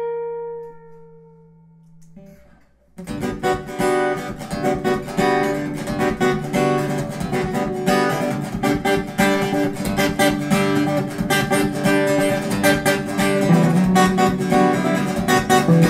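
Background music: a held note fades out, then after a brief pause strummed acoustic guitar music starts about three seconds in and carries on steadily.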